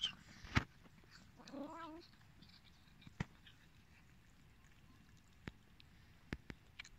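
Stray cats meowing: a high meow ending right at the start, then a lower, wavering meow about a second and a half in. A few short, sharp clicks are scattered through the rest.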